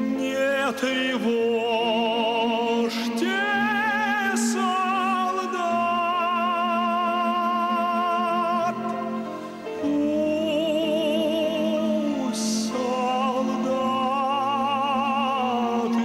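Male tenor singing long held notes with wide vibrato over a steady instrumental accompaniment.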